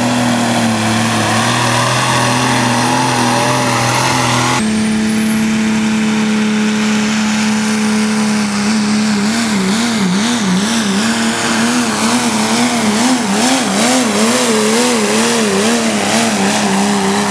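Engines at full throttle pulling a weight-transfer sled: first a modified pulling tractor, then, after an abrupt change about four and a half seconds in, a diesel pickup truck. Partway through, the truck's engine note starts wavering rapidly up and down as it pulls.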